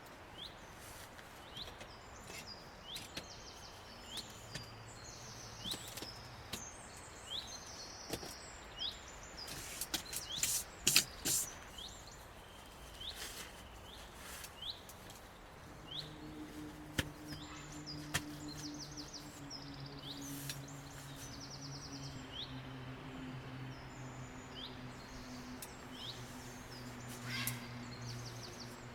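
Forest birds calling throughout with short rising chirps and quick trills, over a few sharp knocks about ten seconds in. About halfway through, a low steady hum starts and runs on.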